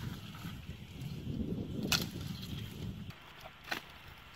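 Bare feet walking through grass and dry brush, with two sharp cracks of twigs, one about two seconds in and one a little before the end, over a low rumble in the first three seconds.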